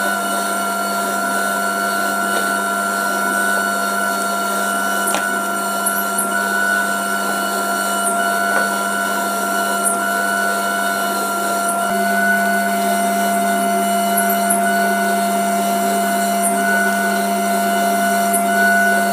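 A steady, unchanging hum made of a few held tones, with a slight shift in its sound about twelve seconds in.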